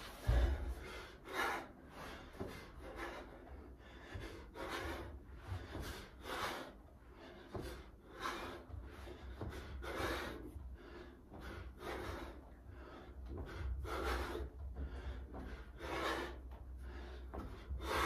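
A man breathing out hard, in short sharp breaths, once with each sit-up: about ten breaths, one every couple of seconds, over a low rumble of his body moving on the floor.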